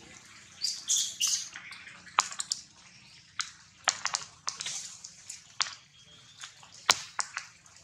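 Rain dripping through tree foliage: scattered, irregular sharp ticks of falling drops, with a short run of high chirps about a second in.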